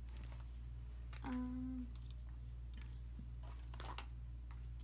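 Scattered light clicks and taps of makeup products and the clear vinyl cosmetic bag being handled and set in place, the sharpest near the end, over a steady low hum. A brief hummed voice sound comes about a second in.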